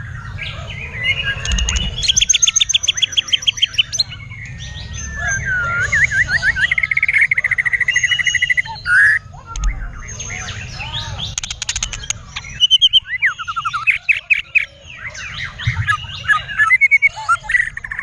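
White-rumped shama singing loudly and almost without pause: runs of rapid, evenly repeated trilling notes mixed with clear whistles and fast sweeping glides.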